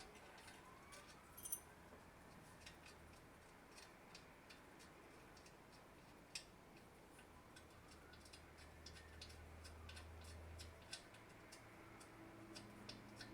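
Near silence with faint, fairly regular ticking, and a faint low hum for a few seconds past the middle.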